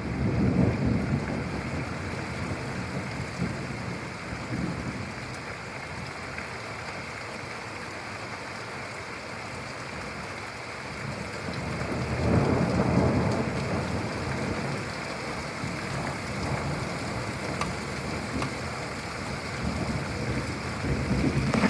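Steady rain falling, with two low rumbles of thunder: a short one right at the start and a longer roll about twelve seconds in.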